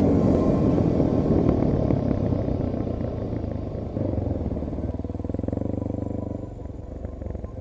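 Enduro motorcycle engine running, growing quieter over the first few seconds, picking up briefly about four seconds in, then settling into an even low pulsing beat before dropping off near the end.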